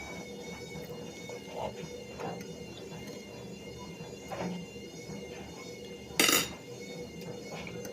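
Light clinks and knocks of dishes and cutlery as someone eats a meal, with one short loud clatter about six seconds in, over a faint steady hum.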